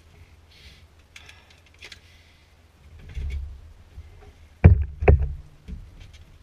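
Paper checklist rustling and small clicks of handling in a light aircraft's cockpit with the engine off, then two loud dull thumps close together a little past the middle, the loudest sound.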